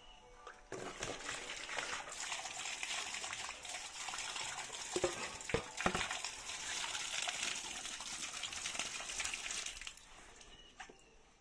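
Tap water gushing from a standpipe onto a large tilapia and the tiled floor, starting about a second in and shut off near the end, with a couple of knocks midway.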